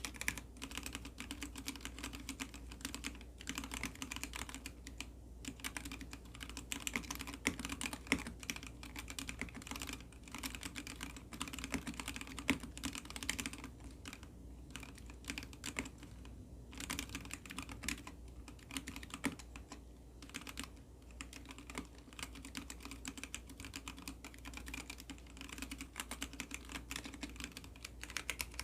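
Continuous fast typing on an ABKO ADK05 acrylic-case mechanical keyboard with Kailh Box Red linear switches: a dense stream of key clacks, thinning briefly about halfway through.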